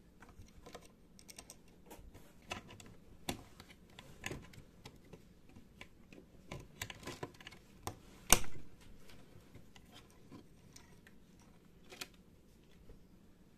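Scattered small clicks and taps of a metal tool and fingers on the plastic reel table and steel spindle of a video tape machine, as the tool works at the small E-clip holding the reel on, with one sharp, much louder click about eight seconds in.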